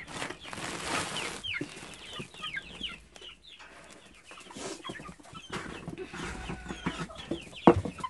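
Young chickens clucking and cheeping in a coop, many short falling calls overlapping. A brief burst of noise comes about a second in, and a few sharp knocks near the end.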